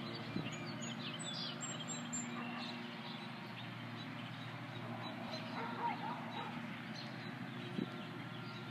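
Birds chirping and calling outdoors, with a few quick high chirps in the first couple of seconds and a wavering call about six seconds in, over a steady low hum.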